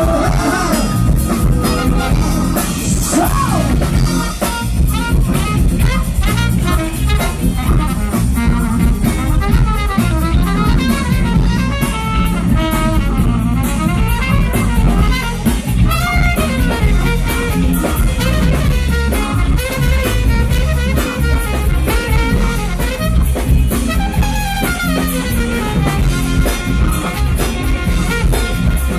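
Live band playing a loud, steady groove: drum kit, electric guitar and bass, with horns (saxophone and trumpet) on top.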